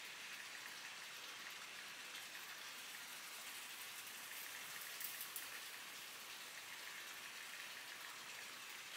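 Ground beef frying in a pan on the stove, a faint steady sizzle.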